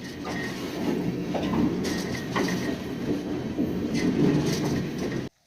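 Freight train rolling along the track, heard from aboard a car: a steady rumble with clanks, rattles and brief wheel squeals. It cuts off suddenly near the end.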